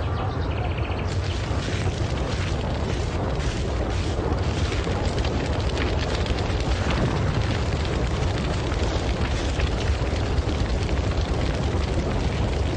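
A large fire burning: continuous crackling over a steady low rumble.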